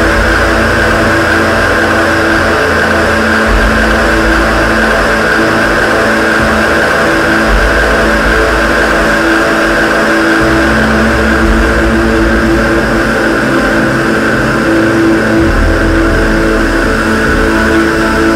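Loud, droning electronic music played live on synthesizers: sustained tones over a hiss, with a deep bass note that shifts to a new pitch every few seconds.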